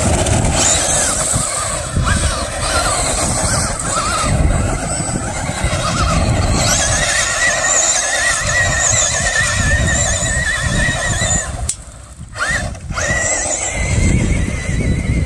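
Traxxas Rustler VXL 2WD's brushless motor running on a 3S LiPo: a high whine that swings up and down in pitch with the throttle as the truck drives on dirt. The whine drops away briefly about twelve seconds in, then returns.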